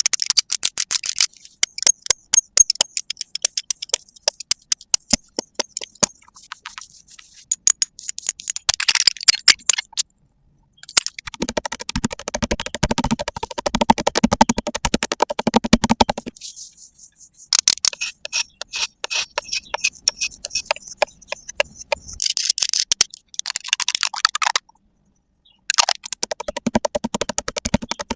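Close-miked ASMR tapping and scratching: rapid crisp clicks and crackles in several separate passages, broken by brief silences.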